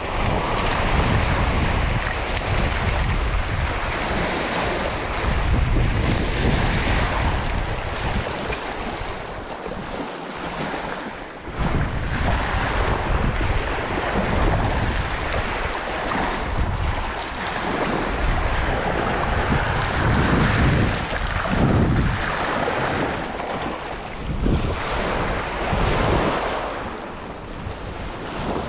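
Wind buffeting the microphone over small waves breaking and washing onto a pebble-and-shell beach, the rumble rising and falling in gusts.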